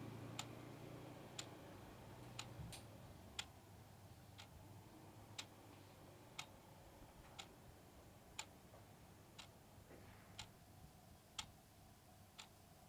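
Faint clock ticking about once a second in an otherwise near-silent room, while a low engine hum fades away in the first couple of seconds.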